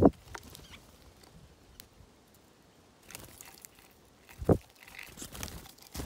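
Small birds at a seed-laden tray feeder: a dull thud at the very start and another about four and a half seconds in, as birds land on and push off the tray, with brief soft fluttery rustles between.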